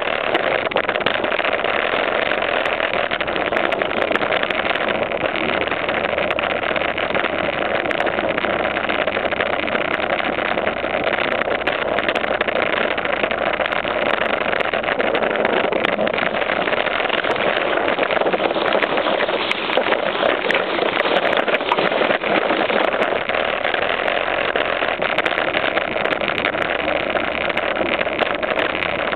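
BMX bike tyres rolling along a rough concrete wall top: a loud, steady rushing noise.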